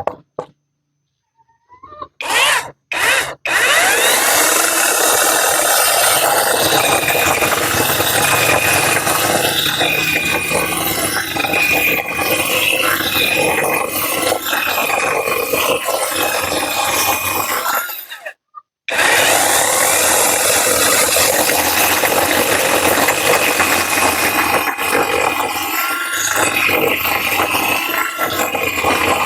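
Tanzu 12-inch cordless battery chainsaw cutting wood: the electric motor whines and the chain rasps through the log, the pitch sagging and recovering with the load. A few short blips of the trigger lead in, and the saw stops briefly about two-thirds through before cutting again.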